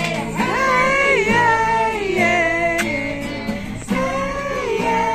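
A woman singing held, sliding notes to a played acoustic guitar.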